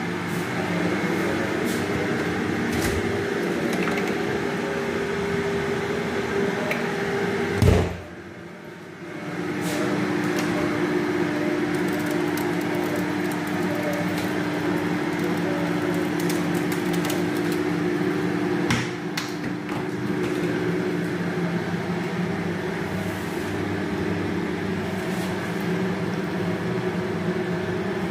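Steady machine hum holding a few even tones. A thump comes about eight seconds in, after which the hum drops away for a second or two and then returns, and a sharp click follows near the middle.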